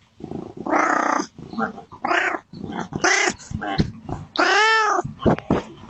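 Domestic cat yowling and meowing in a run of calls, some harsh and rough, others clear calls that rise and fall in pitch, the longest of them about three quarters of the way through.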